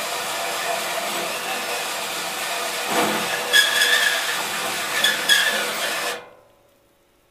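Makita cordless drill running at low speed, driving a 4.5-inch hole saw through a sheet-metal enclosure, with high-pitched squeals from the saw teeth in the middle of the cut. The drill stops suddenly about six seconds in.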